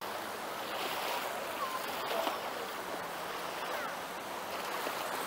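Small waves washing on a shallow sandy beach, a steady rush of surf, with faint distant voices of people.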